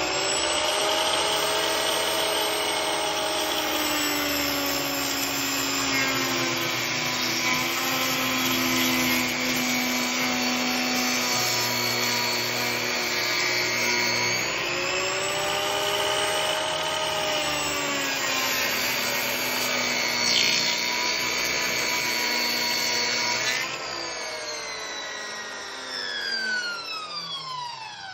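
Mafell ZK 115 Ec cutter's electric motor running at full speed as its cutter head mills tenons across four timber beams, with the noise of the wood being cut. The motor whine sags in pitch under load and rises again about halfway through as the cut eases. A few seconds before the end the motor is switched off and winds down with a falling whine.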